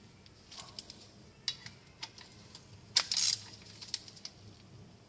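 Irregular small metallic clicks and taps of hand tools and parts being handled at the engine's crankshaft end, with a louder clack and a short scraping rattle about three seconds in.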